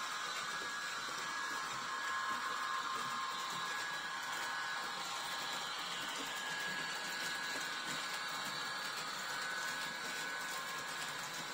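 HO scale model freight train running over the track: a steady whirr from the motors of the Roco IORE locomotive pair and the wagons' wheels rolling on the rails, with faint tones that come and go.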